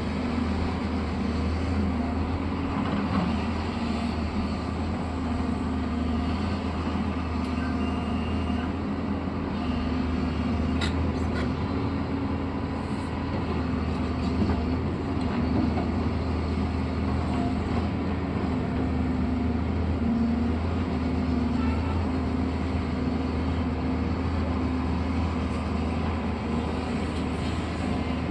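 Diesel engine of heavy construction machinery running steadily with a low, even hum.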